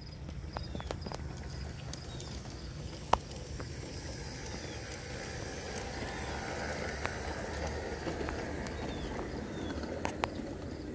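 G scale model train rolling past on garden track: a steady wheel-on-rail rumble that grows louder from about five seconds in, with scattered sharp clicks.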